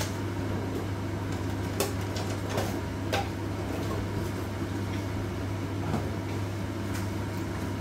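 Hot oil and pan drippings in a wok crackling faintly, with a few scattered pops, over a steady low hum.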